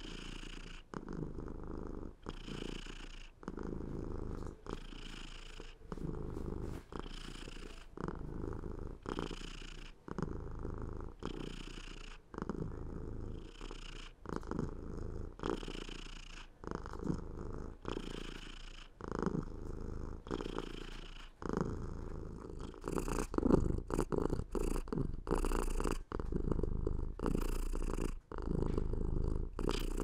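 Domestic cat purring close up, a low rough purr that swells and breaks in regular breathing cycles of about a second each. It grows louder over the last third.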